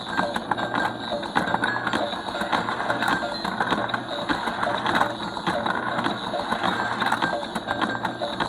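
Battery-powered ducky Ferris wheel track toy running: its small motor and plastic gears clattering, with continual rapid clicking and a low motor hum that comes and goes.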